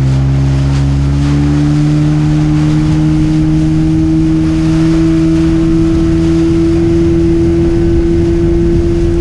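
40 hp Mariner outboard motor running hard, driving the boat at speed, its pitch creeping slowly upward. Wind buffets the microphone, with water rushing along the hull.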